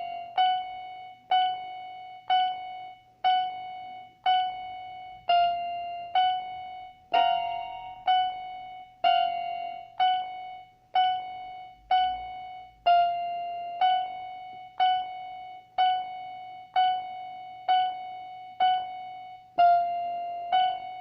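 Electronic keyboard playing a piano-like voice: a single note struck about once a second, mostly the same pitch over and over, each one dying away before the next.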